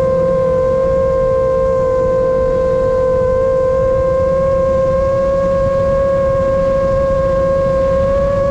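Chimera 7 long-range FPV drone's motors whining at a steady high pitch, sagging slightly a couple of seconds in and then creeping back up as the throttle changes, over low wind rumble on the onboard microphone.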